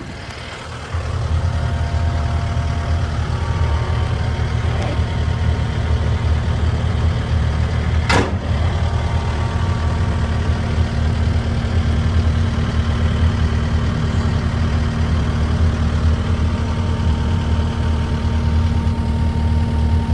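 Kubota SVL75-2 compact track loader's diesel engine running steadily. It steps up in loudness about a second in, and there is a single sharp knock at about 8 seconds.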